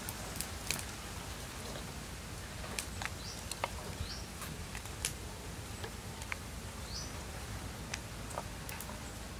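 Scattered light clicks and taps as split young tamarind pods are set down in a stone mortar, over a steady outdoor hiss. A bird gives a short rising chirp three times.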